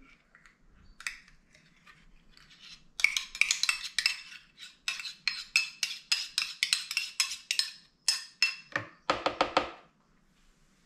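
A metal spoon scraping and clinking against a stainless-steel measuring cup as sour cream is scooped out of it. A quick run of clinks starts about three seconds in, and a few sharper taps come near the end.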